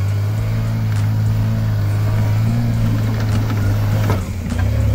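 1996 Toyota Land Cruiser FZJ80's 4.5-litre inline-six running steadily at low revs as it crawls over snow-covered rocks. It dips briefly about four seconds in, with a short knock.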